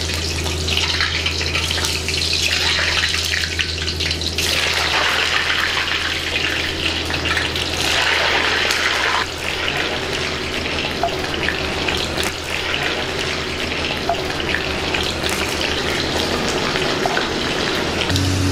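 Potato sticks deep-frying in hot oil: a steady, dense sizzle of oil bubbling hard around them, over a low steady hum.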